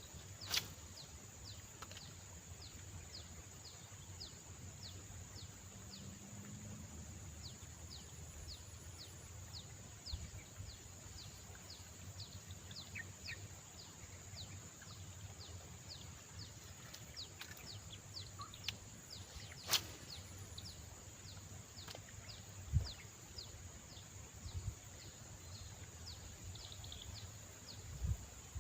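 Outdoor natural ambience: a steady high-pitched insect drone, with a short falling chirp repeated about twice a second throughout. Two sharp clicks stand out, one about half a second in and a louder one about twenty seconds in.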